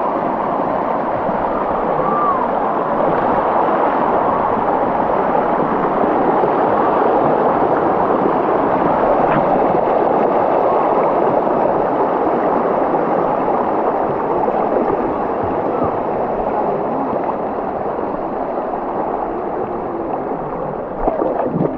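Stream water rushing and gurgling over rocks, a steady, even rush.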